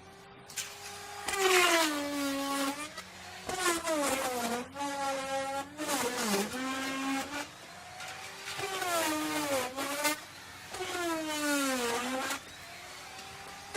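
Electric wood router running and cutting wood, its motor whine sagging in pitch and recovering about five times as the bit is worked through the wood, with a rasping hiss during each cut.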